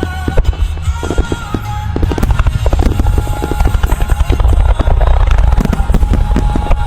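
A fast barrage of fireworks shells bursting and crackling in quick succession, growing louder and denser after about two seconds, over music played through loudspeakers.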